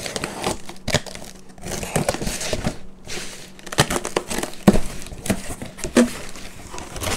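Box cutter slitting the packing tape along the seam of a cardboard shipping box, with scratchy crinkling and tearing of tape and cardboard, then the box flaps pulled open with a few sharp snaps near the end.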